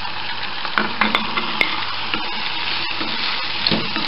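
Oil sizzling steadily in a pan as diced tomatoes are spooned in and stirred into frying zucchini. A spoon clicks sharply against the glass bowl and pan several times about a second in, and scrapes through the vegetables near the end.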